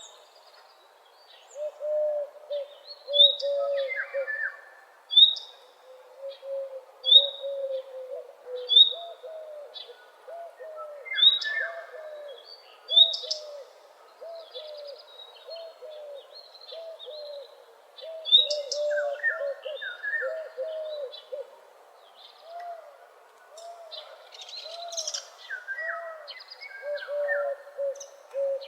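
Several birds singing together in a dawn chorus. A steady series of short, low repeated notes runs under sharp high chirps, which come about every one to two seconds, and brief warbled phrases in between.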